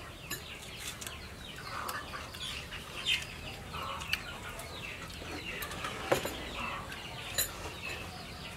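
Chickens clucking in the background, with a few sharp clicks and taps.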